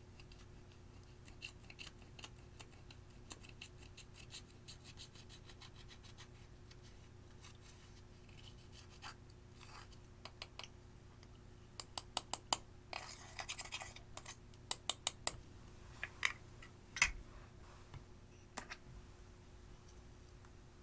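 Pressed eyeshadow being cut and scraped out of its pans: a run of fine rapid scratching ticks, then scattered sharp clicks and a short burst of scraping.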